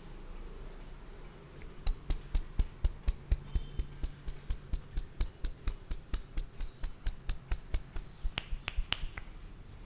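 Rapid, even percussive tapping of hands on the head in an Indian head massage, about four sharp slaps a second. The slaps start about two seconds in and stop near the end.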